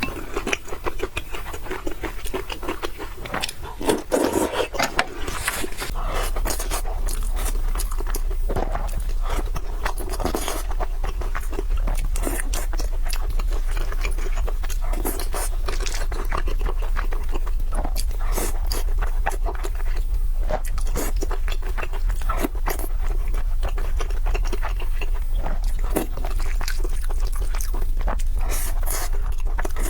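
Close-miked eating sounds: a person chewing and biting food, with many small irregular clicks and crunches. A steady low hum comes in about six seconds in and stays.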